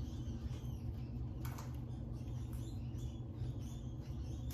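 Pet rats squeaking in their cage: many short, high squeaks in quick succession over a steady low hum, with a single click about a second and a half in.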